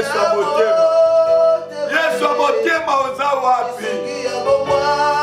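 A man's voice singing a prayer of lamentation, with wavering and drawn-out held notes, over steady sustained instrumental backing music.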